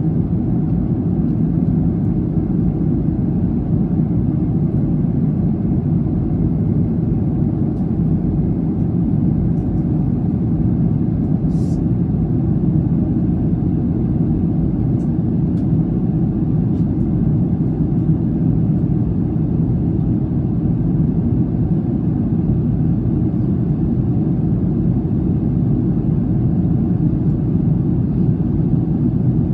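Steady low roar inside an airliner's cabin in cruise: jet engine and airflow noise heard from a window seat.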